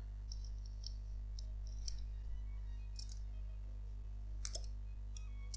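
Metal corkscrew being worked into the cork of a red wine bottle and drawing it out: a run of small scattered clicks and creaks, with a sharper pair of clicks about four and a half seconds in. The cork comes out without a pop.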